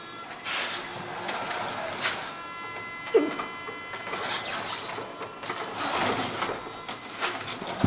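Radio-controlled King Hauler dump truck driving, its small electric motor and gearbox whirring and swelling as it moves. Sharp clicks throughout, and a brief falling squeak about three seconds in.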